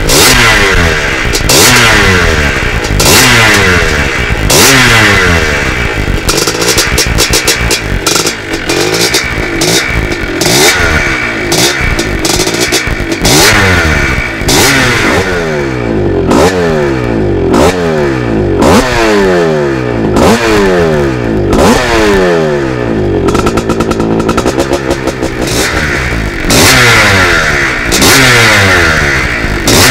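1981 Maico 250 reed-valve two-stroke dirt bike engine being revved again and again in quick throttle blips, the pitch climbing and dropping back each time.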